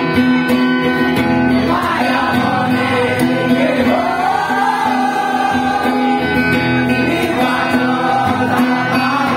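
Steel-string acoustic guitar played fingerstyle, with singing joining in about two seconds in.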